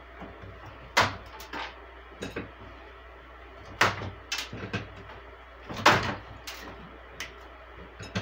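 Chocolate bark being snapped into pieces by hand on a metal baking sheet: a scattered series of sharp snaps and knocks, the loudest about one, four and six seconds in.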